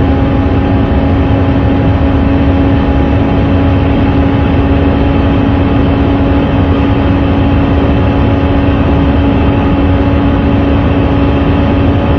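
Audi RS3's 2.5-litre turbocharged five-cylinder engine running hard at a steady pitch at very high road speed, under a dense low rumble of wind and road noise.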